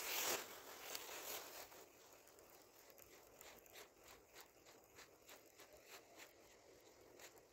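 Clothing fabric rubbing over the camera's microphone in a loud rustle at the start, then faint irregular clicks and light rustles, a few each second.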